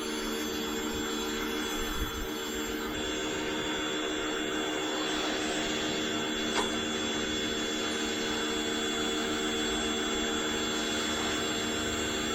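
Pressure washer running steadily, its motor and pump making a constant hum and hiss, with a couple of faint ticks.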